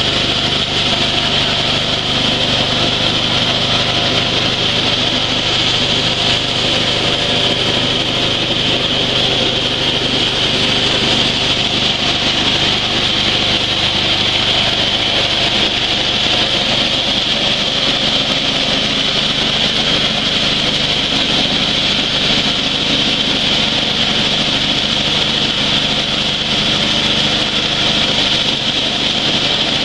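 Engine-driven coffee huller running steadily while dry coffee beans are fed through it and hulled, giving a continuous loud mechanical drone with a hissing, rubbing grind of beans in the hulling chamber.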